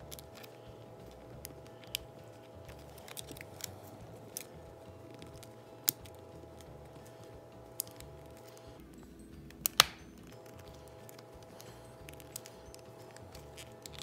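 Scattered sharp plastic clicks and small snaps as a bread tie is worked along the seam of a TV remote's snap-together plastic case, prying its tabs loose. The sharpest clicks come about six seconds in and just before ten seconds in, over a faint steady hum.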